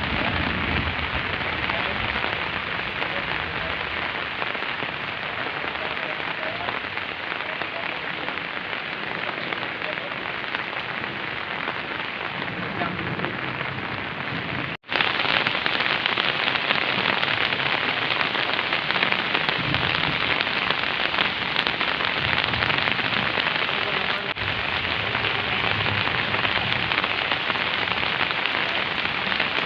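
Rain pouring steadily, a dense even hiss of drops on surfaces. About halfway through it cuts out for an instant and resumes a little louder.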